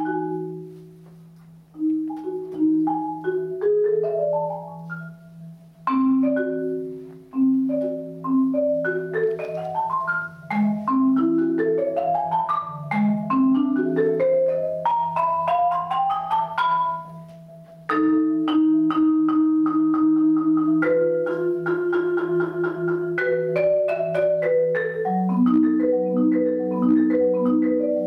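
Solo Yamaha concert marimba played with four mallets: quick rising arpeggio runs over a low sustained note. About two-thirds of the way through, it shifts to fast repeated strokes on held chords, and rising runs return near the end.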